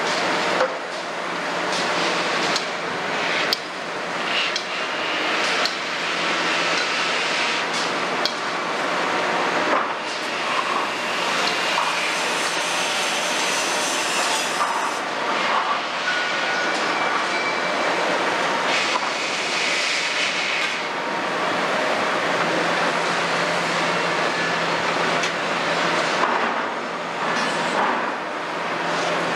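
Kobelco 350 excavator's Hino J08 six-cylinder diesel running steadily under load as the machine swings and works its bucket, with sharp knocks now and then.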